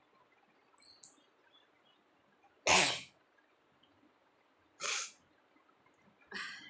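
A woman sneezing three times, about two seconds apart, the first sneeze the loudest.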